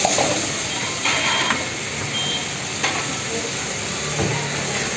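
Chicken and sauce frying with a steady hiss and sizzle in an iron wok over a gas burner, with a metal ladle knocking and scraping against the wok a few times in the first three seconds.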